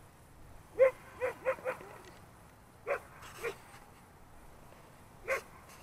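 A dog barking during play: a quick run of four short barks about a second in, two more around three seconds, and a single bark near the end.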